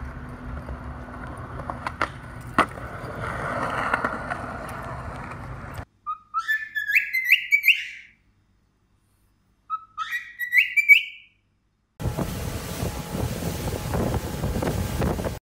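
Skateboard wheels rolling on concrete, with two sharp clicks. Then a cockatiel whistles two short rising, stepped phrases, the loudest sounds here. Then the steady noise of a motorboat under way.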